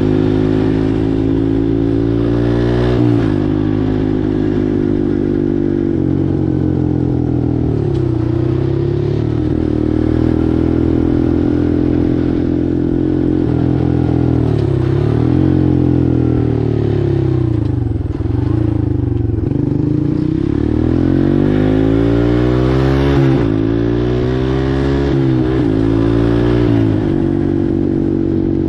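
Four-wheeler (ATV) engine running under way, its pitch dipping and climbing back several times as the speed changes.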